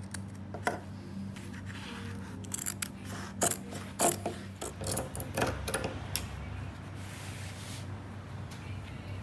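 Large fabric scissors snipping through fabric bonded to stiff lampshade paper: a run of crisp snips and rasping cuts from about one second to six seconds in, over a steady low hum.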